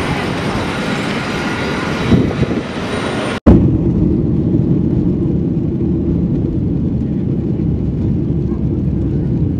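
Jet airliner on its takeoff roll, heard from inside the cabin: the engines at takeoff power and the runway rumble make a steady, heavy low rumble. It follows a sudden cut about three and a half seconds in; before the cut there is a hissier, higher noise.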